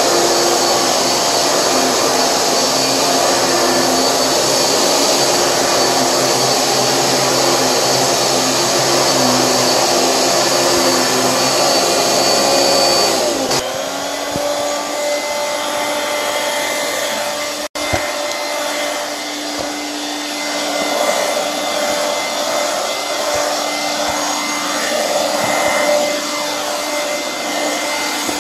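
Hoover vacuum cleaner motor running steadily with a whining tone; about halfway through the pitch glides down and the sound becomes a little quieter and changes in tone, then it runs on.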